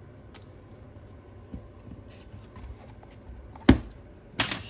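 Small clicks and taps of a repair tool on an opened iPad Pro as a flex connector is disconnected, with one sharp click about three-quarters of the way through and a quick pair of clicks near the end.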